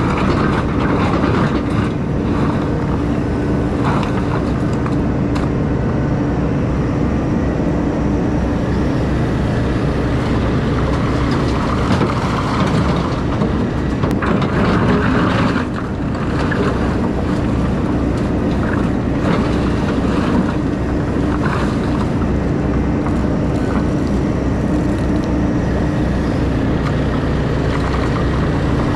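Takeuchi excavator's diesel engine running steadily under load as it digs out riprap and muddy sediment and swings to load a dump truck, with knocks and clatter of rock in the bucket and truck bed.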